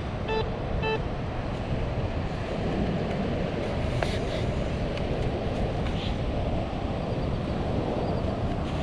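Steady wind and surf noise, with two short electronic beeps from metal-detecting gear near the start, sounded as a target is pinpointed. A faint click comes about four seconds in.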